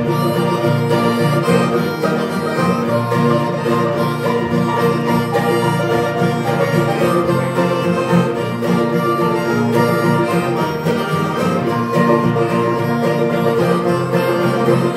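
Bluegrass band playing: several acoustic guitars strumming with banjo and mandolin picking over a steady beat.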